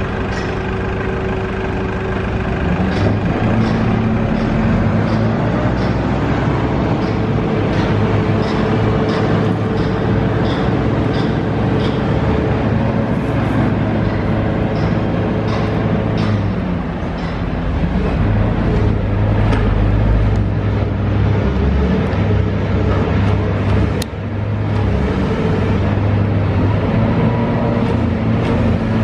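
Diesel engine of a Hitachi Zaxis high-reach demolition excavator running under hydraulic load, its revs stepping up and easing back as the boom works. A short high chirp repeats about every three-quarters of a second through the first half, and a single sharp knock comes late on.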